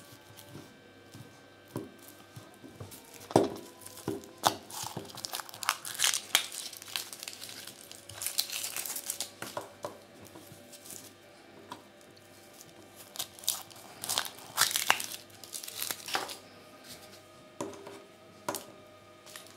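Foil wrapper of a Kinder Surprise chocolate egg being crinkled and torn off by hand, in irregular bursts of rustling with a few sharp clicks.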